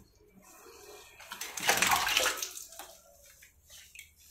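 Water splashing and sloshing as a cat is washed, swelling about one and a half seconds in and fading out by about three seconds.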